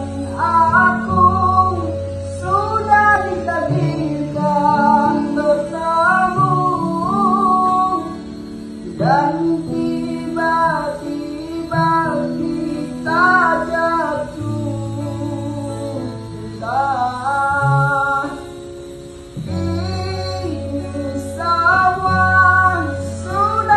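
A young man singing a slow, melodic song to acoustic guitar accompaniment, in phrases of a few seconds each, with long held low notes underneath.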